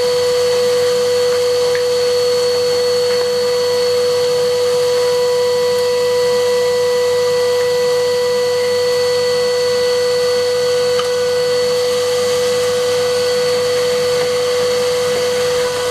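A Henry vacuum cleaner running steadily with a constant pitched whine, its hose sucking soil and loose rubble out of the gaps in a stone wall.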